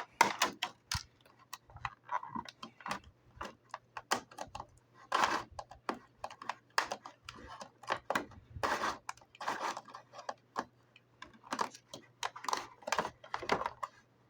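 Plastic and cardboard toy packaging being handled and pulled apart: irregular crinkling, crackling and sharp clicks, with a few longer crackles about five and nine seconds in.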